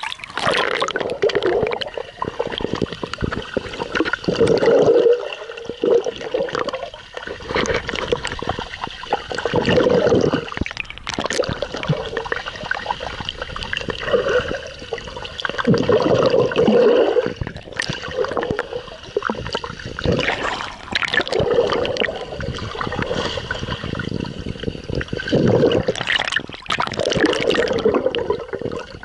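Pool water churning and sloshing against an action camera's waterproof housing as a swimmer swims with it, heard from inside the sealed housing with the camera mostly underwater. The rush swells and falls every two to three seconds with the strokes.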